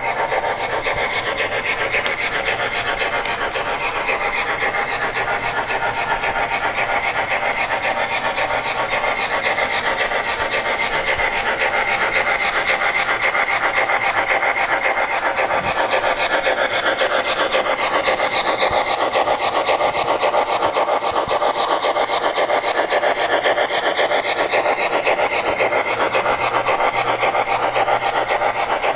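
Sound-decoder steam chuffing from the onboard speaker of an MTH HO scale PRR 2-8-2 Mikado with Proto-Sound 3.0 as the locomotive runs, a steady, fast rasping chuff.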